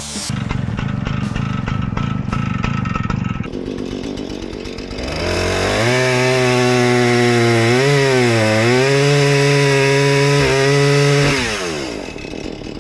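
Husqvarna chainsaw revving up to high speed about five seconds in, holding there with a brief dip in pitch partway through, then winding down near the end. Before the rev, a lower steady engine sound runs.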